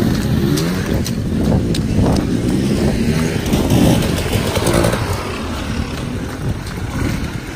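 Enduro dirt bike engine revving up and down as the bike rides past close by, loudest about four seconds in.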